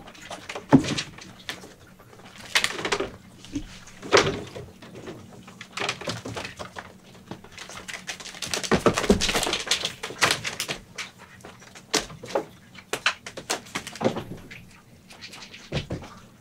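A kitten climbing a wrapped scratching post: irregular scratching as its claws grip and pull on the wrapping, with occasional knocks and thumps, over a faint steady hum.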